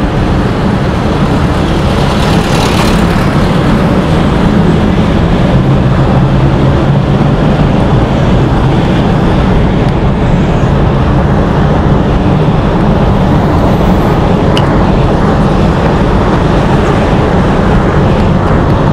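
Road and engine noise of a moving car, heard from inside the cabin while driving through a road tunnel: a loud, steady low rumble, with a brief hiss about three seconds in.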